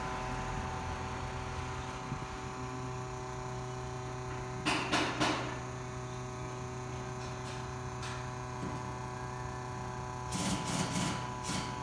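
Automatic/CVT transmission fluid exchange machine giving off a steady electric hum with a few fixed tones. Brief clusters of clicks and knocks come about five seconds in and again near the end.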